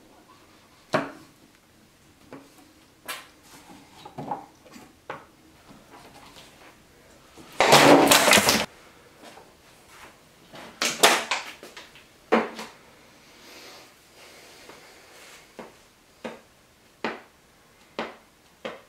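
Kitchen knife chopping vegetables on a cutting board over a wooden table: separate sharp chops, with a loud burst of rapid chopping about eight seconds in and another cluster about three seconds later.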